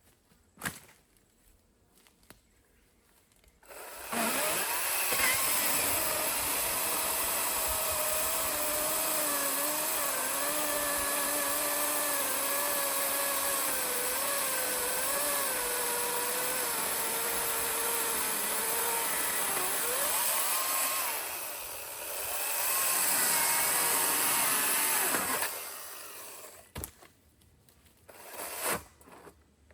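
Chainsaw cutting into a fallen log. It starts about four seconds in, and its engine note wavers and sags under load. It eases off briefly around twenty seconds, runs hard again, and stops a few seconds later, leaving a couple of knocks.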